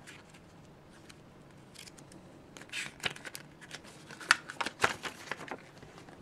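Pages of a paper booklet and leaflets flicking and rustling as they are leafed through by hand, in short scattered strokes, the sharpest snap a little over four seconds in.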